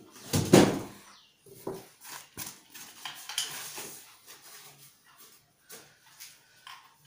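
Plastic wrapping crinkling and cardboard packaging rustling as a chrome motorcycle silencer is pulled out of its carton and handled. A sharp rustle about half a second in is the loudest moment, followed by scattered short crinkles and taps.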